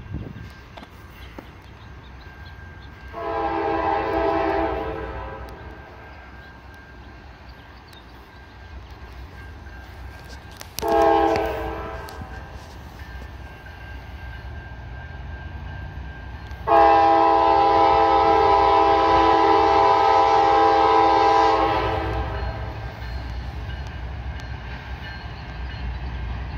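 Air horn of an approaching Norfolk Southern GE C40-9W diesel locomotive sounding three blasts: one of about two seconds, a short one about eleven seconds in, then a long one held about five seconds, the loudest.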